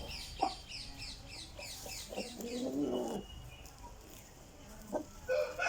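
Birds calling: a rapid string of short, high, falling chirps, about four or five a second, then a lower call. Near the end an aseel rooster starts to crow, one long call falling in pitch.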